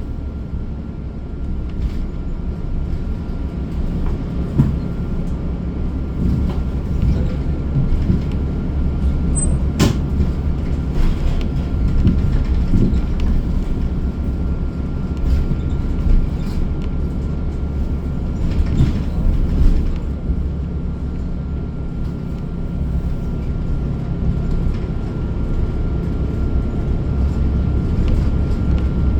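Cabin of a moving bus: a steady low rumble from the drivetrain and road, with a faint constant whine and occasional knocks and rattles, a sharp one about ten seconds in.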